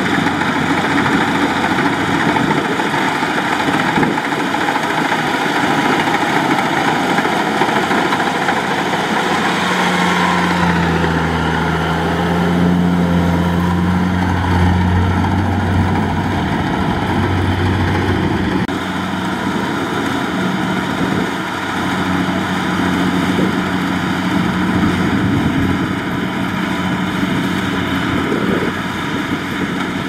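Kubota DC70 rice combine harvester at work: its diesel engine and threshing machinery run with a loud, steady drone. About a third of the way in, a deeper engine hum grows stronger, then eases off past the middle.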